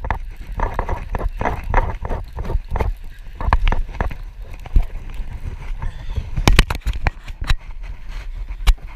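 Wind rumbling on the microphone, with rustling and sharp clicks from a hand working a baitcasting reel right against the camera; a few clicks stand out in the second half.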